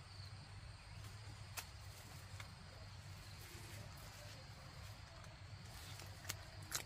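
Faint outdoor ambience: a steady high-pitched insect drone, with a few sharp clicks scattered through it, the loudest near the end.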